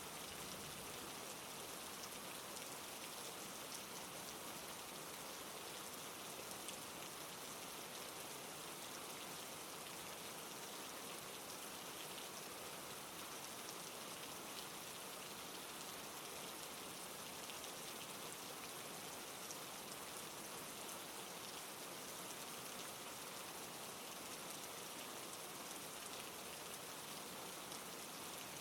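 Steady rain falling, an even hiss with small drop ticks, with no change in intensity.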